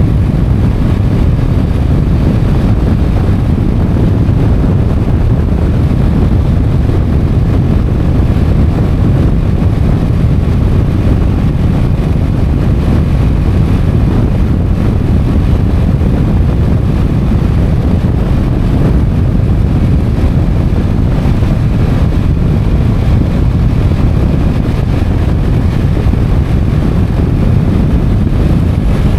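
Motorcycle under way at a steady speed: a loud, even rumble of engine and wind on the camera microphone, with no change in level.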